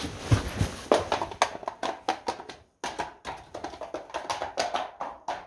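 A hard sunglass case tumbling down the rocky cave floor after falling from a partly open backpack: a quick, irregular string of knocks, taps and clatters, with a couple of dull thumps in the first second.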